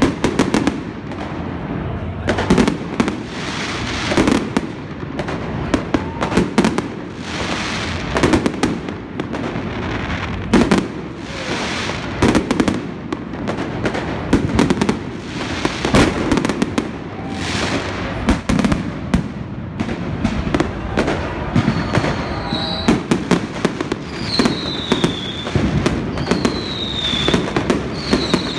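Fireworks exploding overhead: a dense, continuous run of bangs and crackling bursts. In the last few seconds a short falling whistle repeats about every second and a half over the bangs.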